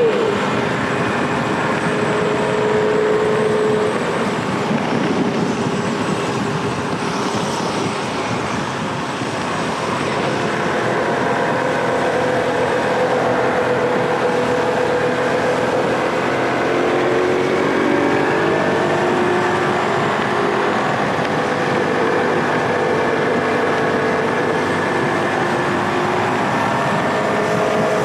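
Small motorcycle engine running steadily under way, its pitch shifting as the throttle changes about two-thirds of the way through, over a constant rush of wind and road noise.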